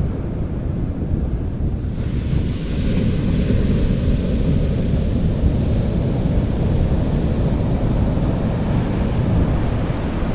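Sea waves washing onto a beach, with wind rumbling on the microphone underneath. A wave's hiss swells about two seconds in and holds.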